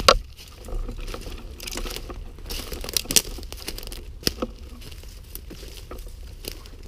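Rustling and crunching of a person moving through dry undergrowth. There is a sharp knock right at the start and a few scattered clicks later.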